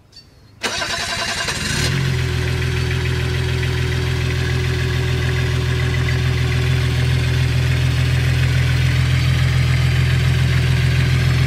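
Lincoln Mark VII's engine starting: a short burst of starter cranking about half a second in, catching quickly and settling into a steady idle.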